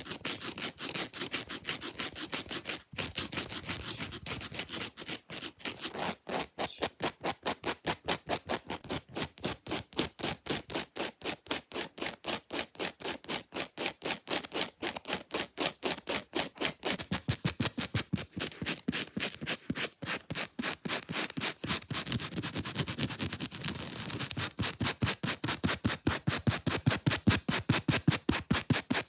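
Long fake nails scratching fast over an object's surface, a quick run of rasping strokes at about five a second. The scratching grows louder and fuller over the last few seconds.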